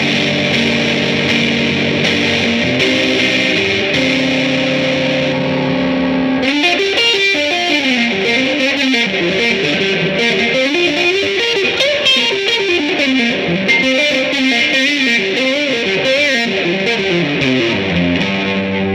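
1957 Gibson ES-225TD hollow-body electric guitar played through an Allston amp with its volume full up, turbo boost on and reverb at halfway, giving a distorted, overdriven tone. Held chords ring for about six seconds, then a quick single-note lead line runs up and down, and it ends on a held chord.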